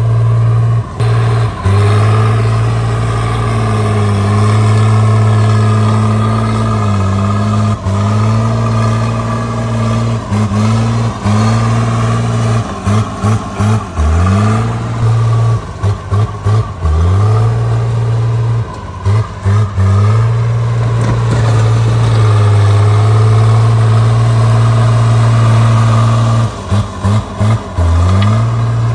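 Caterpillar D3C bulldozer's diesel engine running steadily under working load. Its pitch sags and recovers several times, as when the engine is pulled down pushing rock. The sound cuts out for brief moments several times.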